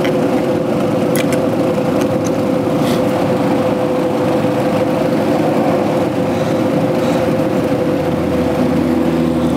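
A steady machine hum with one constant tone, with a few faint clicks of carburetor parts being handled.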